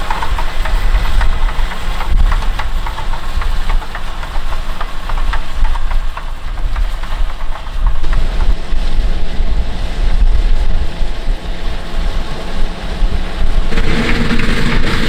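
John Deere 6250R tractor's diesel engine running under ploughing load: a steady low rumble with a rapid clatter. Music comes in near the end.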